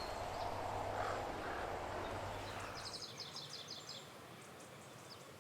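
A bird calling a quick run of about eight short, high notes, about three seconds in, over steady background noise that cuts off abruptly just before.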